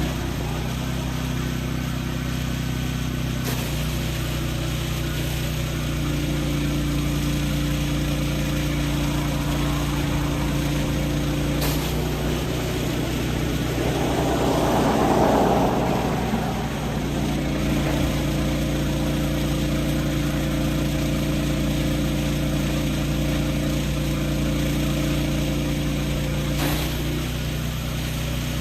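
Gas-engine pressure washer running steadily. A rushing noise swells for a couple of seconds about halfway through.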